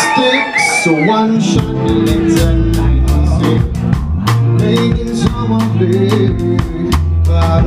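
Live band coming in about a second and a half in and playing on: electric bass, drum kit and keyboards together, with steady bass notes and regular drum hits.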